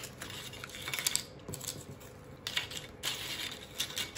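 Light, scattered clicks and taps of crisp rice crackers being handled and set out on a platter.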